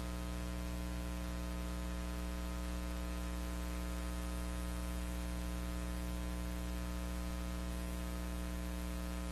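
Steady electrical hum with static hiss, unchanging throughout. This is the noise floor of a silent film transfer, with no sound of the train itself.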